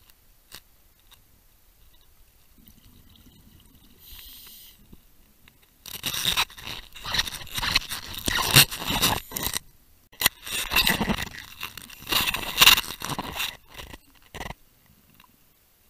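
Underwater, a scuba diver's breathing through a regulator: a brief hiss about four seconds in, then two long bursts of exhaled bubbles rushing and bubbling past the camera, a short gap between them.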